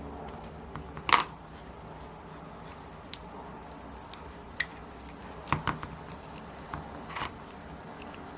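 Scattered small metallic clicks and clinks as the parts of a Magnum FS30 four-stroke model glow engine are handled during teardown, with the cylinder head coming off. Six or so sharp taps at uneven intervals, the loudest about a second in and a cluster around the middle, over a faint steady hum.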